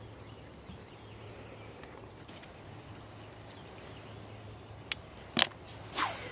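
Quiet lakeside background with a thin, steady high tone, then near the end a sharp click followed by the swish of a baitcasting rod being cast.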